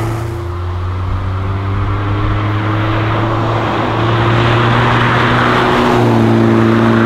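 Engine of a Hillman Imp fitted with a rear-mounted 1.9-litre Volvo 16-valve turbo four-cylinder, running steadily while the car drives, its pitch creeping slightly upward. It gets louder about four seconds in.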